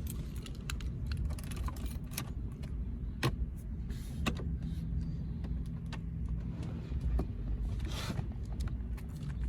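Scattered small clicks and light knocks, from keys and switches being handled in a car, over a low steady rumble.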